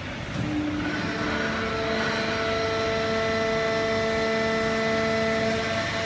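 Fully automatic horizontal hydraulic baler running: a steady machine noise, joined about a second in by several steady whining tones that hold on.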